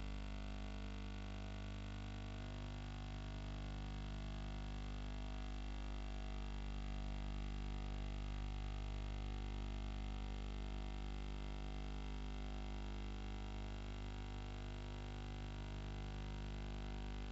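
Background music of sustained, slowly shifting chords like a drone, with no beat.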